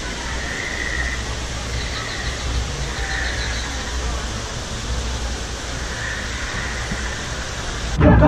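Steady outdoor ambient wash of noise with a low rumble, and two faint high trills about two and three seconds in. At the very end, music with heavy drum thumps cuts in loudly.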